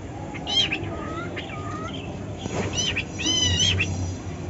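Male cockatiel making a run of unusual, strange-sounding calls: several short, wavering calls that bend up and down in pitch, the longest about three and a half seconds in.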